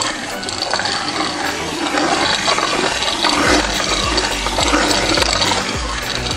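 Homemade cardboard racing-game mechanism spinning, its arms turning over the cardboard track: a steady, loud scraping whir, with a low hum joining about halfway through.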